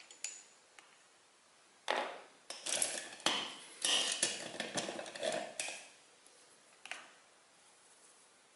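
A run of clattering knocks and clinks of hard objects for about four seconds, with one more knock near the end: paintbrushes being put down and picked up among other painting tools as the brush is changed.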